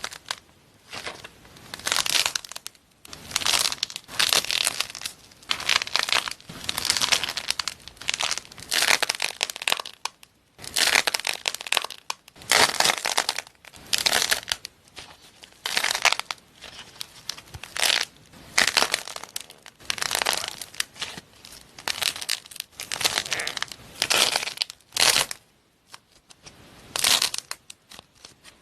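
Slime being squeezed and pressed by hand, making crackling, crunching bursts about once a second with short pauses between them.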